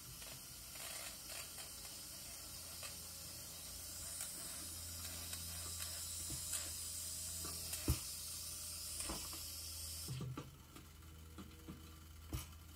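Steam hissing from a valve on top of a Wilesco D6 model steam engine's boiler as it is opened by hand, building up and then cutting off suddenly about ten seconds in. Sharp metallic clicks come through it, the loudest about eight seconds in.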